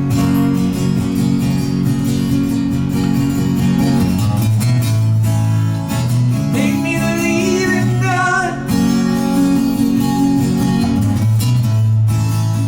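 Acoustic guitar strummed in a live song accompaniment, its chords changing every couple of seconds, with a short wavering higher melody about halfway through.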